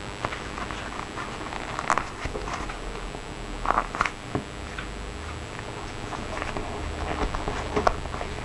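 Close handling noise of a BlackBerry Pearl 8110 phone being squeezed and turned in the hands on a desk: scattered clicks and taps of its plastic case amid fingers rubbing over it. The sharpest clicks come about two seconds in, around four seconds in and near the end.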